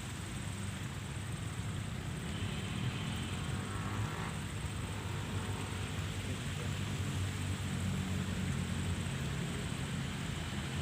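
Steady low rumble of passing road traffic from a nearby main road.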